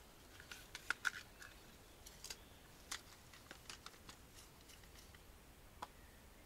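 Faint, irregular light clicks and taps of fishing tackle being handled while a spinning lure is picked out and fitted.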